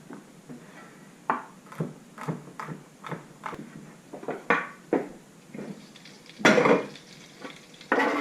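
Irregular clattering knocks and scrapes of hard objects being handled, with a longer, louder scrape about six and a half seconds in.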